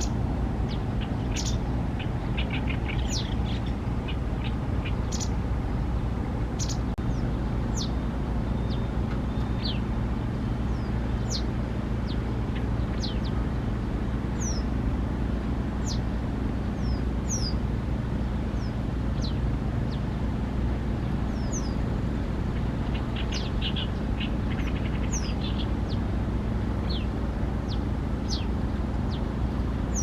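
White wagtail giving its sharp 'chichi' calls: short, high, downward-slurred notes repeated at irregular intervals, with quick runs of rapid notes about two seconds in and again near the end. A steady low rumble runs underneath.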